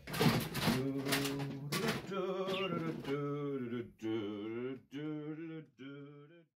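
A man's voice singing a few drawn-out, wavering notes, with rustling of plastic and cardboard in the first two seconds.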